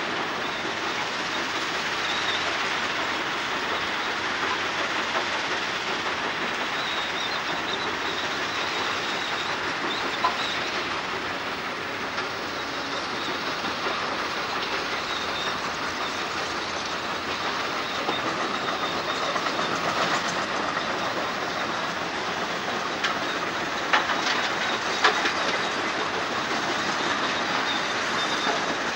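Kobelco excavator travelling on its steel crawler tracks: a steady clattering hiss, with a few sharp clanks standing out.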